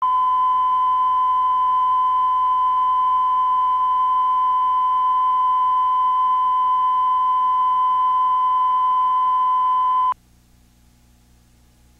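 Steady 1 kHz line-up tone at the head of a videotape, played under the programme slate, cutting off suddenly about ten seconds in. Afterwards only faint tape hiss and hum remain.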